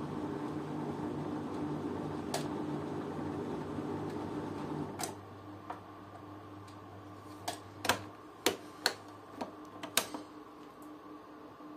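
LG front-loading washing machine running with a steady hum that stops about five seconds in, at the end of its cycle. Then comes a series of sharp, irregular clicks as the spin-speed selector knob is turned through its detents.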